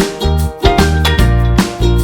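Upbeat background music with a bass line and a steady beat.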